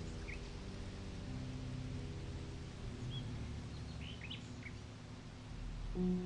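Small birds chirping sparsely, a handful of short high chirps spread through, over a low steady background of held tones.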